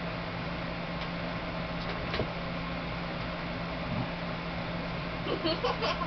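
Steady low room hum with a constant drone, and a few faint, brief small sounds over it about two seconds in and near the end.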